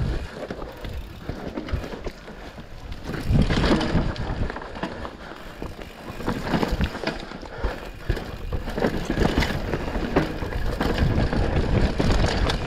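Mountain bike descending a dirt and rock trail: knobby tyres rolling and crunching over the ground, with the bike rattling and clattering over bumps. It gets louder about three seconds in and again near the end.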